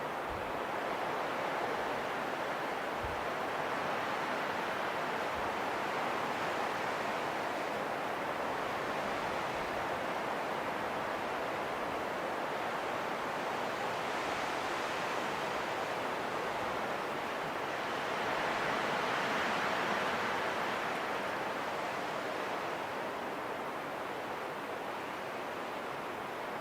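Wind blowing in a steady rush that swells gently about halfway through and again about two-thirds of the way in.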